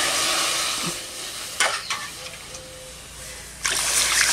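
Water poured from a small steel bowl into a large metal kadai, splashing into the pan. The pour eases off about a second in, a short metallic knock follows, and a second pour starts near the end.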